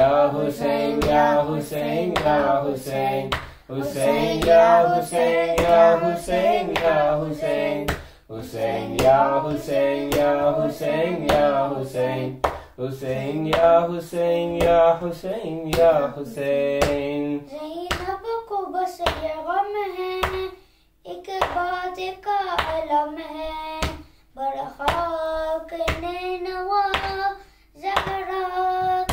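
Noha, a Shia lamentation chant, sung by a solo voice, with steady matam (rhythmic chest-beating) keeping time at about two beats a second.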